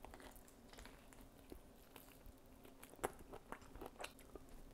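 Faint biting and chewing on a barbecue-sauced beef short rib: scattered soft clicks, the sharpest about three seconds in, with a quick run of them shortly after.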